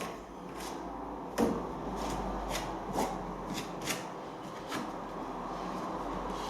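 Wooden tongue-and-groove floorboards being handled and lifted: a string of wooden knocks and rubbing, the loudest knock about a second and a half in.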